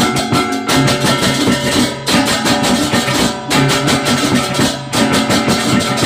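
Balinese baleganjur gamelan ensemble playing a piece: a fast, driving pulse of clashing cymbals and struck gongs over drums, with ringing gong tones sustained beneath.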